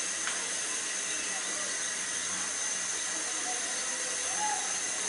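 Samosas deep-frying in hot oil in a pot: the oil sizzles steadily. The oil is at a heat between medium and high, the heat used to fry samosa shells crisp.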